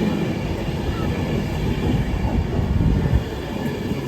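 Passenger train running through the station, a loud, steady low rumble of engine and wheels on the rails.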